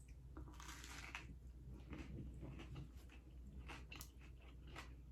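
A person biting into and chewing crunchy food: a crunch about half a second in, then a run of small wet chewing clicks.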